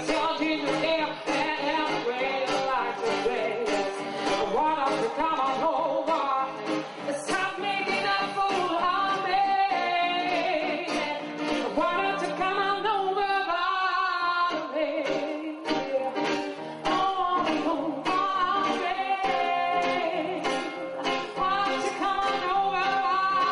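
A woman singing a slow song into a microphone, accompanied by acoustic and electric guitars, with a long held note near the end.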